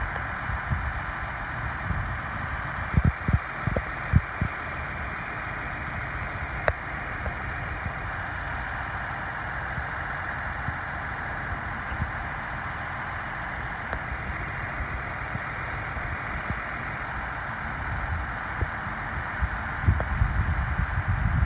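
Engine of heavy farm machinery running steadily, with a few low thumps about three to four seconds in and heavier rumbling near the end.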